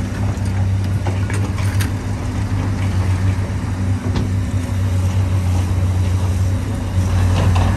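Diesel engine of heavy earthmoving machinery running steadily at one low pitch, with a few light knocks over it.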